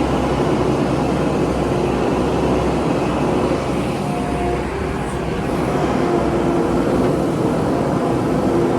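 Diesel engine of heavy earthmoving machinery, a backhoe loader or dump truck, running steadily with a deep, even rumble.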